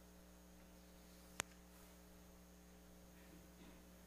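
Near silence with a low steady electrical hum, broken by one sharp click about a second and a half in.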